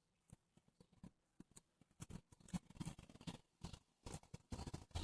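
Near silence, with faint, irregular clicks and rustles that become more frequent from about two seconds in.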